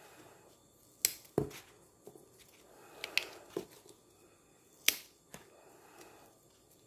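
Fresh lemongrass stalks being peeled by hand: about six sharp, crisp snaps as the outer leaf sheaths crack and tear away, with some soft rustling of the leaves between them.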